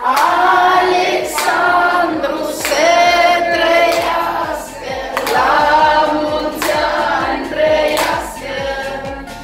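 A group of voices singing a birthday song together, with a steady beat of strokes about once a second.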